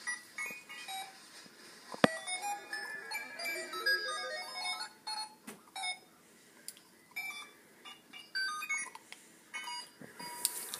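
Electronic beeping tones in short, quick melodic runs stepping up and down, like a toy's or ringtone's tune, with one sharp click about two seconds in.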